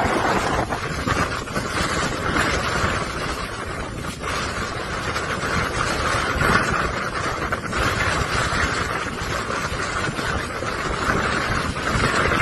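Strong wind from a whirlwind rushing over and buffeting the microphone, the loud roar swelling and easing in gusts.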